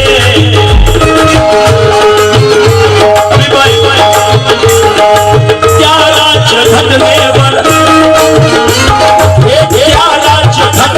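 Instrumental passage of a live qawwali-style Bhim geet: hand drums such as tabla keep a steady beat under a held, sustained melody line.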